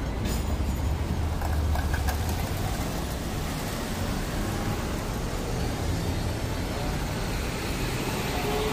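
Hong Kong double-decker electric tram running, a steady low rumble of the car on its rails heard from on board.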